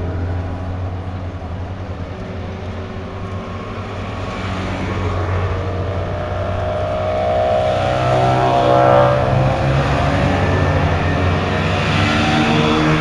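Small vintage microcars, Goggomobils with their little two-stroke twin engines among them, driving slowly past one after another. The engine sound swells to its loudest about nine seconds in as one car passes close.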